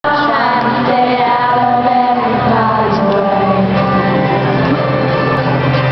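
Live pop-country song heard from the audience: acoustic guitar with a woman singing, the crowd's voices mixed in.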